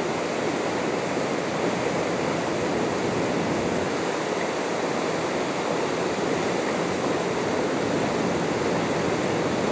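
Steady rushing of flowing water, an even hiss with no separate splashes standing out.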